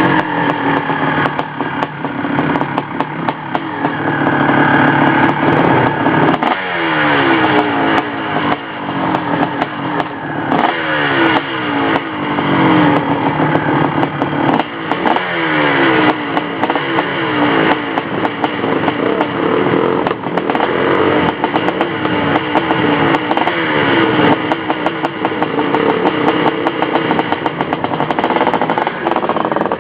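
Dirt bike engine running under load, revving up again and again. From about six seconds in, its pitch repeatedly climbs and drops back as it accelerates through the gears.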